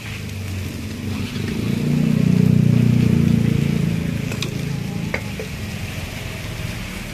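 Meat patties and slices of meat sizzling on a flat-top griddle as metal tongs turn them, with a couple of sharp metal clicks about four and five seconds in. A low rumble swells in the middle and fades away.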